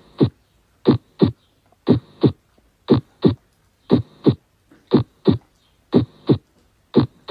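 Recorded human heart sounds: a steady lub-dub, two thuds about a third of a second apart, repeating about once a second.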